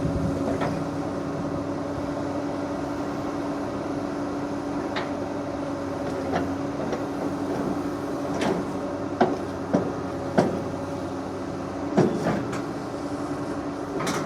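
Excavator's diesel engine running steadily. In the second half come a handful of sharp knocks and clunks from the working machine.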